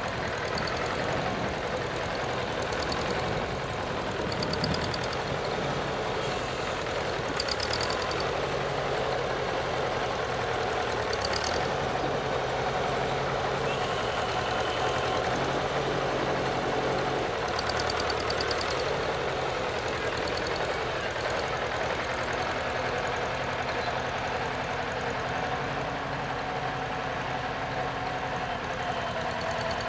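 Farmall Super C tractor's four-cylinder engine running steadily under load as it drags loose dirt with a rear implement, the engine note shifting up and down a few times as it works.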